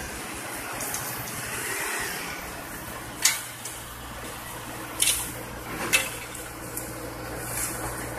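Road-paving work: an asphalt paver's engine running with a steady low hum under the hiss of traffic on the wet road. About three sharp scrapes of a rake on fresh asphalt come in the second half.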